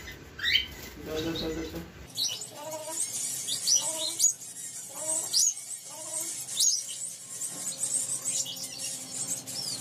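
Caged finches chirping: a quick run of short, high chirps, about two a second, mixed with some lower calls.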